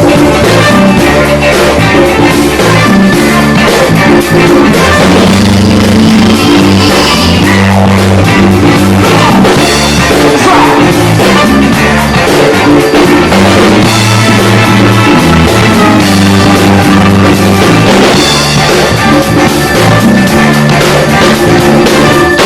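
Band playing an instrumental stretch of a funk-rock groove: a moving bass guitar line, drum kit and electric guitar, loud throughout.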